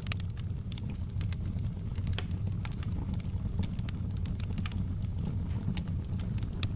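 Fireplace fire crackling: irregular sharp snaps and pops, several a second, over a steady low rumble of the flames.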